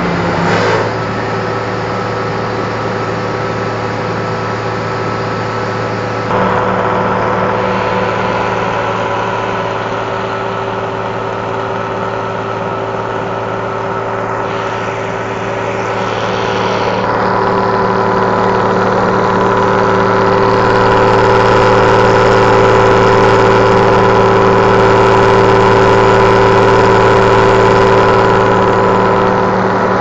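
BM Volvo S950 combine harvester's 120 hp Volvo Penta diesel engine running at a steady speed with a rasping exhaust. It grows louder in a step about six seconds in and again from about seventeen seconds.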